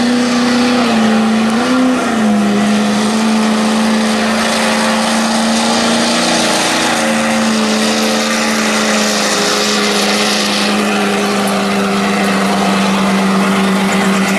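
Street diesel pulling truck's engine running hard at high, steady revs under load on a pull, with two short rises and dips in pitch in the first couple of seconds before it settles into one held note.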